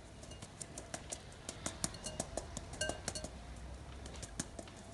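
Quiet background music with faint, irregular light taps and clicks from a metal mesh sieve being shaken and knocked over a glass mixing bowl to sift flour.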